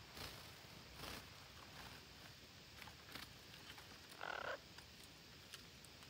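Faint rustling with a few soft clicks, then one short, raspy animal call about four seconds in.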